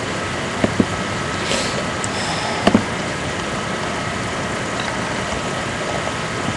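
Steady background hiss and hum with a faint constant tone, broken by a few short soft clicks, twice close together near the start and once about three seconds in.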